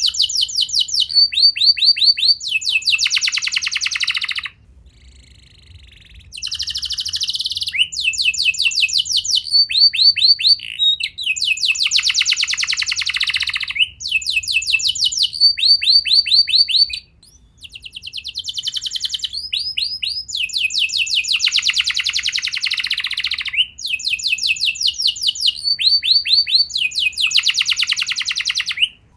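Domestic canary singing a continuous song of rapid trills: each run repeats one short note many times a second, then switches to a different run, with brief pauses about 5 seconds in and again around 17 seconds.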